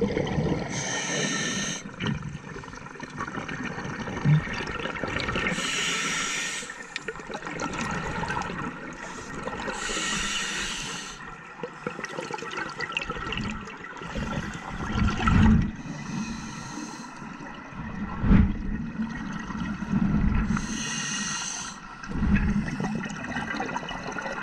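Scuba regulator breathing heard underwater through a GoPro housing: a hissing inhale about every four to five seconds, with the exhaled bubbles rumbling and gurgling between breaths.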